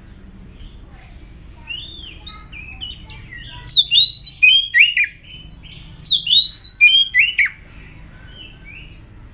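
Oriental magpie-robin singing: two loud runs of quick, sliding whistled notes, the first about three and a half seconds in and the second about a second later, with softer notes before them.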